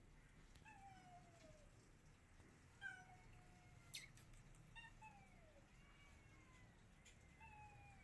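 A domestic cat meowing faintly four times, each meow a short call falling in pitch. There is a sharp click about four seconds in.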